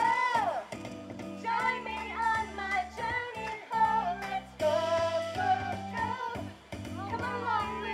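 Performers singing a song together over instrumental accompaniment with a steady bass line.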